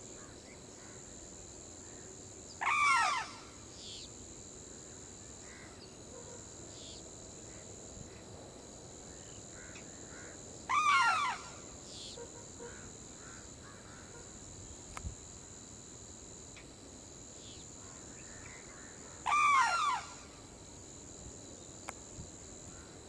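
Sarus cranes trumpeting: three loud calls, about eight seconds apart, each lasting under a second and rising then falling in pitch. A steady high-pitched buzz runs underneath.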